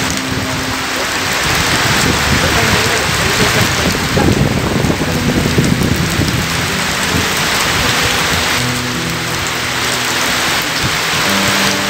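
Heavy downpour of rain splashing onto muddy gravel ground and into puddles, a steady hiss of falling rain. Faint low held tones come and go underneath.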